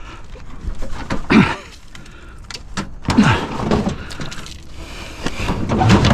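Scrap being handled: repeated knocks and clatter, with creaking scrapes that drop in pitch about a second in and again about three seconds in.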